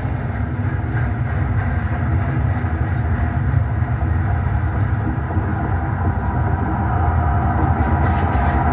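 Steady diesel locomotive sound effect for a Canadian Pacific SD90MAC: a deep, continuous engine rumble with a running-train sound.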